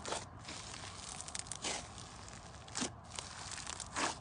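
Rough-textured slime kneaded and pressed by hand, crackling steadily, with four louder crunching squeezes about a second apart.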